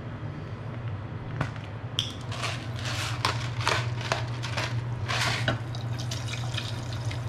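An egg frying in oil in a skillet, sizzling and crackling, over a steady low hum. In the middle of the stretch, for a few seconds, a pepper grinder is twisted over the pan, adding a run of short gritty crunches, a few a second.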